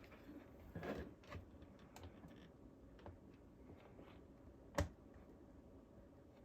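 Faint, scattered taps and clicks of small animatronic parts being handled and slid back into place, with a short cluster about a second in and one sharper click near the five-second mark.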